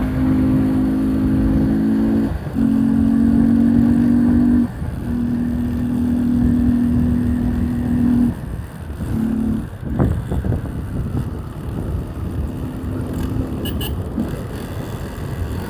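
Motorcycle engine with an open air filter giving a steady, even-pitched drone that stops and starts again several times in short segments. A sharp click comes about ten seconds in.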